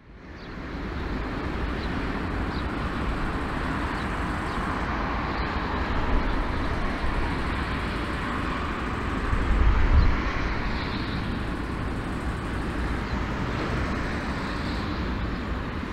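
Airbus A340-313 jet engines running at taxi power, heard from a distance as a steady hiss over a low rumble; the rumble swells briefly about ten seconds in.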